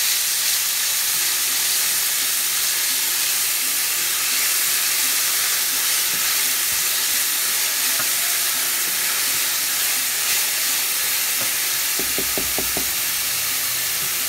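Diced red onion sizzling in hot oil in a stainless steel frying pan while it is stirred with a spatula: a steady frying hiss. A few quick knocks come near the end.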